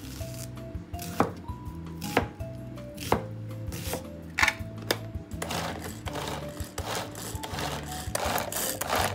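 Kitchen knife cutting through an onion onto a plastic cutting board, a sharp chop about once a second. From about halfway it changes to a pull-string manual food chopper being yanked repeatedly, whirring in short bursts about twice a second. Background music plays throughout.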